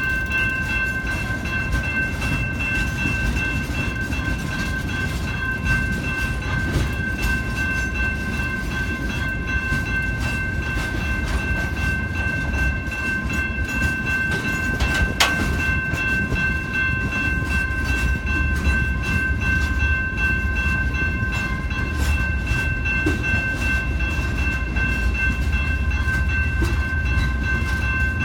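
A train's cars rolling past with a continuous low rumble, a steady high-pitched whine held throughout, and a single sharp clank about halfway through.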